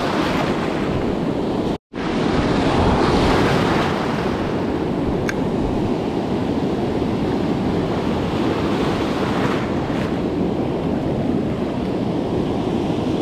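Ocean surf breaking and washing up the beach as a steady rush, with wind on the microphone; the sound drops out completely for an instant about two seconds in.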